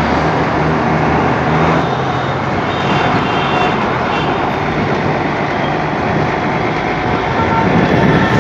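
Heavy road traffic of trucks, buses and cars heard from a moving electric bike: a steady, loud rush of road noise, with a low engine hum early on and a few brief high tones around the middle.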